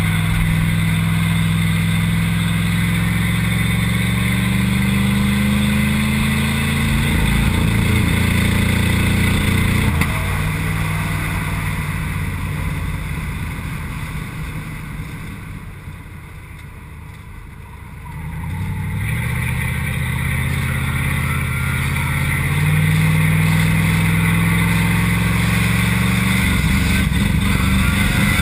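A 1988 Mercedes 560SEL's V8 engine heard from inside the stripped race car's cabin, pulling with its pitch climbing. In the middle it falls away and goes quieter for several seconds, as off the throttle, then builds and climbs again near the end.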